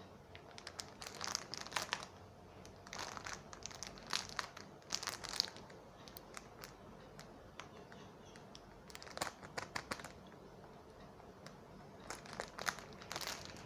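Handling noise: four short spells of crinkling and clicking as plastic is handled.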